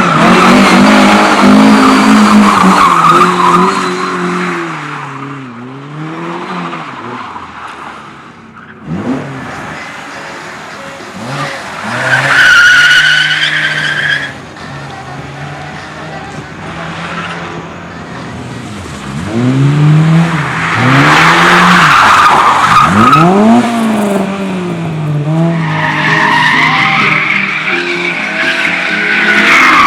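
Car engine revved hard, its pitch rising and falling again and again as the car slides, with tyres squealing twice, in the middle and near the end. The sound breaks off abruptly partway through and picks up again.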